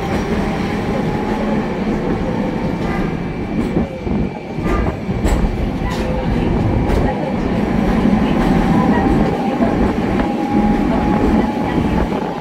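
Kumamoto City Tram 8500-series streetcar running, heard from inside the car: steady rumble and a whine from its nose-suspended traction motor drive, with short clacks from the wheels over the rail.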